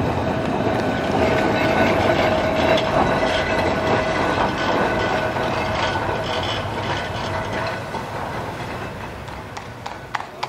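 Blackpool heritage electric tram running on the rails: a steady rumble of wheels on track with a steady whine, growing fainter over the last few seconds. Near the end a run of sharp, regular clicks begins.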